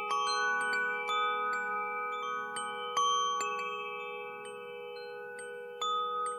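Wind chime ringing: irregular strikes of several bell-like tones that ring on and overlap. The strikes thin out after the middle, and a louder strike comes near the end.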